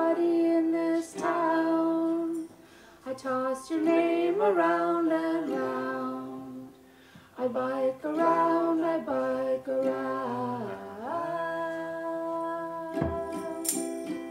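A woman singing a slow song in long held notes, with short pauses between phrases, over a ukulele. Tambourine strikes come in near the end.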